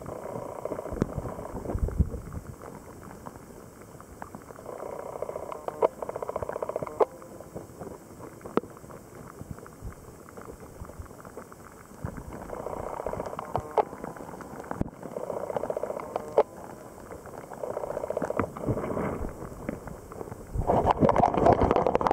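Water lapping and gurgling against a camera housing resting at the surface of a shallow puddle, with scattered small clicks and knocks. It gets louder and busier near the end as the camera is moved through the water.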